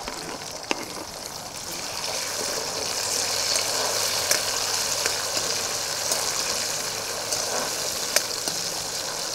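Chopped tomatoes sizzling in hot cold-pressed groundnut oil with mustard seeds, cumin, ginger and garlic in a kadhai: a steady frying hiss with a few sharp pops, stirred with a wooden spatula.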